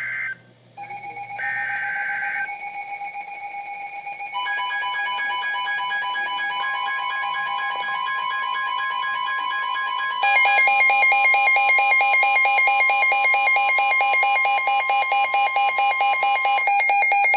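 Emergency Alert System alert tones. A short higher-pitched data screech near the start gives way to steady electronic beeping tones that build up in layers. About ten seconds in they change to a louder, fast-pulsing warble that stops abruptly near the end.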